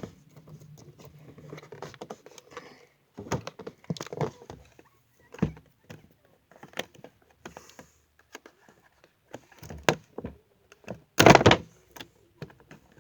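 Cardboard and plastic toy packaging being handled and worked open: scattered clicks, knocks and rustles, with a louder clatter near the end.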